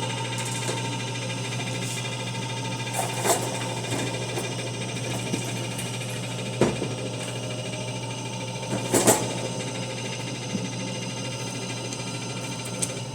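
A machine running with a steady motor hum, with a few sharp clicks and knocks over it.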